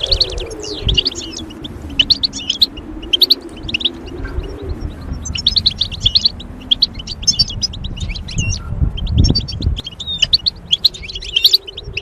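Goldfinch twittering song: bursts of rapid, high, liquid chirps, pausing and resuming. A low wavering hum runs beneath, with a dull thump about nine seconds in.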